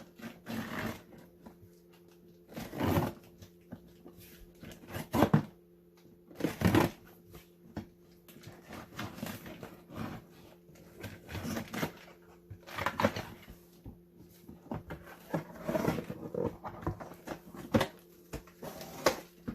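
A cardboard shipping box being opened and its packaging handled: a string of irregular rustling and scraping noises, some sharper than others, over a steady low hum.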